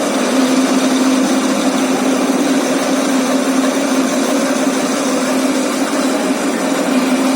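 Lathe running steadily, giving a constant mechanical hum with one steady tone.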